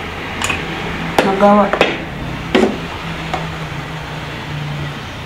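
Aluminium cooking pot lifted off a gas cooker's pan support, with a few sharp knocks, the loudest about two and a half seconds in, over a low steady hum.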